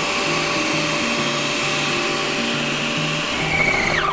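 Philco Multiprocessador All in One Maximus 800 W food processor running steadily at speed 2, kneading pizza dough with its dough blade. Near the end it is switched off and the motor winds down with a falling whine as the dough is done.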